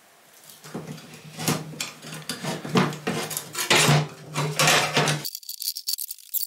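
Locking pliers clinking and knocking against a tack-welded sheet-steel piece of a scooter frame as it is bent, a string of irregular sharp metallic knocks and scrapes. The sound cuts off abruptly about five seconds in.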